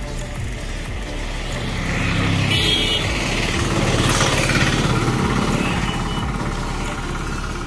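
Road traffic going by: the noise of a passing vehicle swells, is loudest about four seconds in, then fades.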